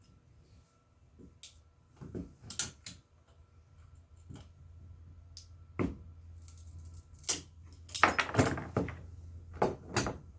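Clicks and small knocks of a plastic phone-holder ball joint being handled and squeezed. About eight seconds in there is a loud burst of crackling as the glue-stuck plastic joint cracks and breaks.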